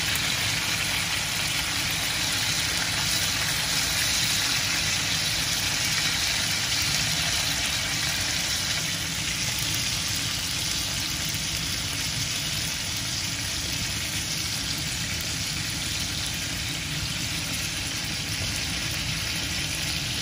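Chicken pieces sizzling steadily in a hot grill pan with a honey and chicken stock glaze, over a low steady hum.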